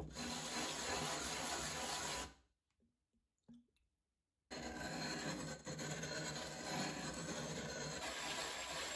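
Cut rim of a glass wine bottle being ground smooth on wet sandpaper, a steady gritty rasping as it is rubbed in circles. It runs for about two seconds, stops for about two, then starts again and carries on.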